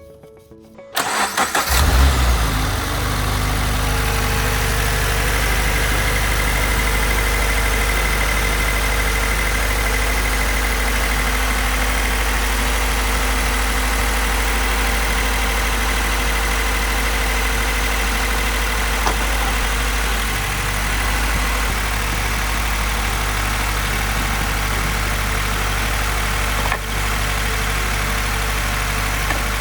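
Subaru BRZ's flat-four boxer engine cranked by the starter and catching after about a second, flaring briefly, then settling into a steady idle.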